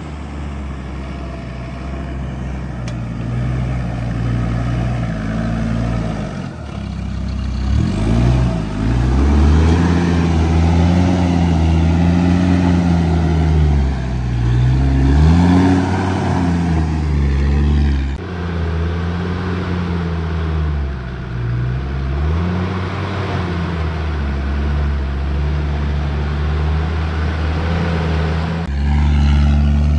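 Land Rover Discovery diesel engines (a 300Tdi, then a Td5) labouring up a steep rocky off-road track in low gear. The engine note rises and falls again and again as the throttle is worked over the ruts, with abrupt changes where one shot gives way to the next.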